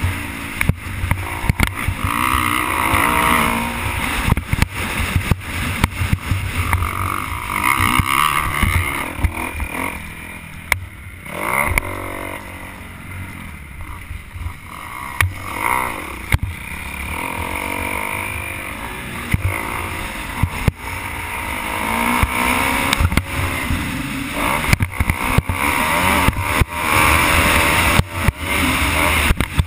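Motocross dirt bike engine revving and shifting through the gears under hard riding, picked up on a helmet camera with wind buffeting and knocks from the rough track. The engine eases off for a few seconds near the middle, then opens up again.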